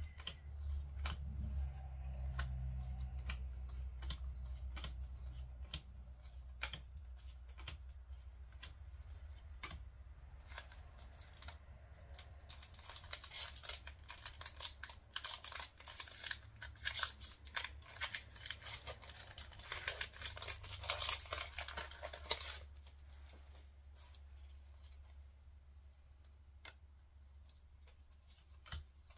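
Pokémon booster packs being handled and opened: the foil wrapper crinkles and is cut or torn open, with a long dense crinkling stretch in the middle, and the cards tick and click as they are flipped through. A steady low hum runs underneath.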